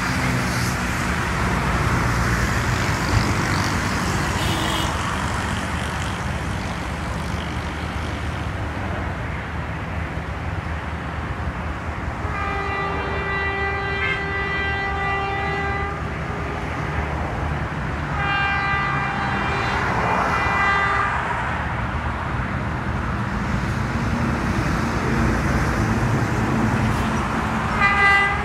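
Horn of an approaching Hitachi HBU-20 diesel locomotive: two long blasts, the first about 12 seconds in and the second about 18 seconds in, then a short one at the very end. A steady low rumble runs underneath.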